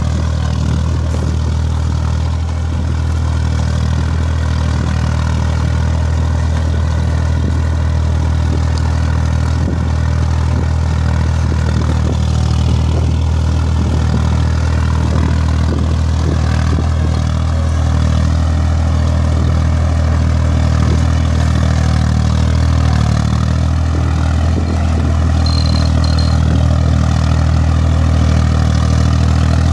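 Hattat A60 tractor's diesel engine running steadily under load as it pulls a mounted disc plough through hard ground that has gone unploughed for years.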